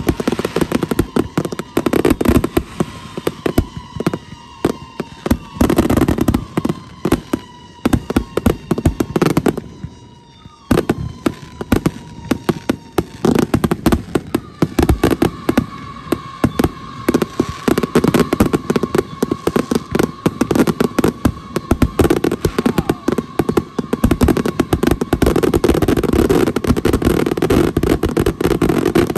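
Fireworks barrage: dense, overlapping bangs and crackling from many aerial shells and cakes firing at once, with a brief lull about ten seconds in. A steady high whistle-like tone sounds under the bangs, sliding slightly lower through the first half, then holding level through most of the second half.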